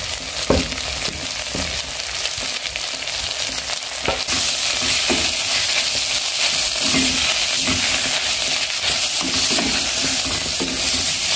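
Omena frying in a stainless steel pot, sizzling steadily as a wooden spoon stirs the fish, with a few soft knocks of the spoon against the pot. The sizzle grows louder about four seconds in.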